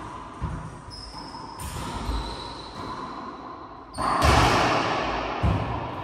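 Racquetball rally: the ball thudding off the court walls and floor in a handful of hits a second or two apart. The loudest hit comes about four seconds in, its echo dying away over the following seconds.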